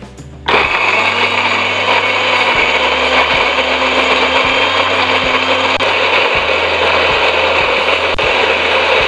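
Electric blender switched on about half a second in, its motor running steadily at full speed as it grinds shallots, garlic and red chillies with a little water into a smooth paste.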